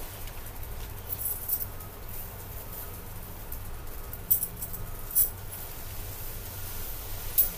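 Nylon tent fabric and its bag rustling and crinkling as they are handled, with a few sharp crackles, the loudest about four, five and seven seconds in, over a steady low rumble.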